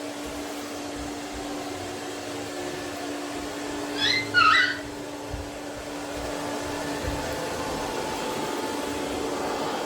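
Robot vacuum cleaner running with a steady hum. Two short high-pitched squeaks about four seconds in.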